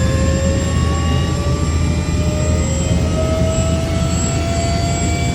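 Helicopter running, its rotor and engine making a steady loud rumble, with a turbine whine that climbs slowly in pitch.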